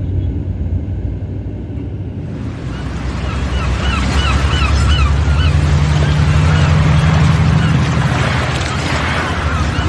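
A bus running along a road, heard from inside the cabin: a steady low engine and road rumble, with a rushing hiss of wind and road noise swelling from about two seconds in. A quick run of about six high squeaks comes around four to five seconds in.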